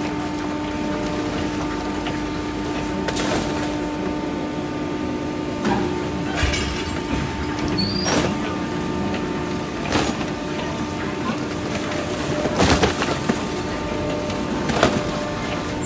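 Steady hum of a garbage truck's engine and hydraulics, with cardboard boxes sliding and knocking against the metal walls of a container in half a dozen separate knocks.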